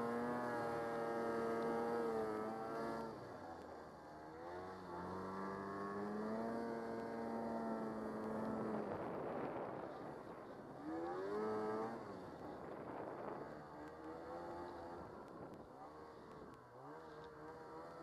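Snowmobile engine revving up, holding, then easing off, about four times over, as the sled rides through powder. Between the pulls there is a short stretch of rushing noise.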